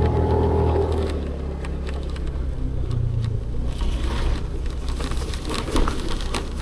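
Motorcycle engine running; its pitch falls about a second in and then holds lower. In the second half a hiss and scattered crackles join in.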